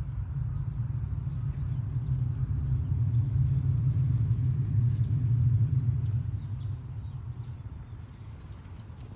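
Low rumble of a passing motor vehicle, swelling to a peak mid-way and fading away over several seconds.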